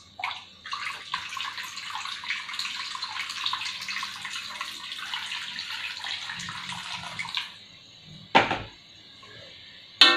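Water poured in a steady stream from a metal pot into a wok, splashing into the shallow spice sauté; the pouring stops about seven and a half seconds in. Two sharp knocks follow near the end.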